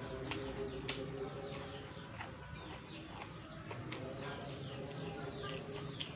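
Close-miked chewing and crunching of raw papaya stem and side vegetables, with repeated sharp crunches. A bird calls faintly in the background.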